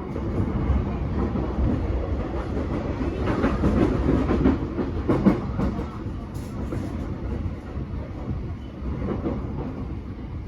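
JR East E233-7000 series electric commuter train running, heard inside the car: a steady rumble of wheels on rail with irregular clatter, loudest in the middle.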